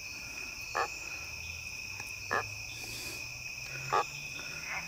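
A frog calls three times in short croaks about every one and a half seconds over a steady high-pitched chorus of night insects such as crickets.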